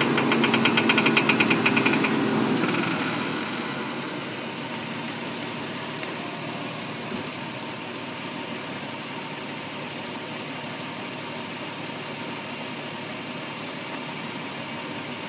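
A 2005 Nissan 350Z's V6 idling while parked. For the first two and a half seconds a rapid, evenly repeating high squeak from the right front wheel area sounds over a steady whine as the wheel is turned right; the owner has no idea of the cause and suspects the control arm, bushings or struts. After the squeak stops, the engine idles steadily.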